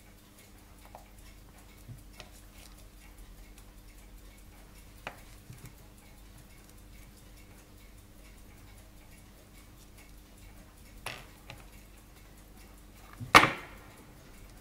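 Steel tweezers clicking and tapping against the Molnia 3602 pocket watch movement while its balance is handled: a few small sharp clicks, then one much louder click about 13 seconds in.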